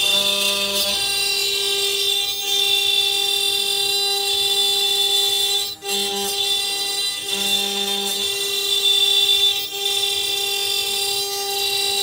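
High-speed CNC router spindle whining steadily while its end mill cuts a brass casting, with the hiss of the cut on top; the sound dips briefly twice as the cutter's load changes.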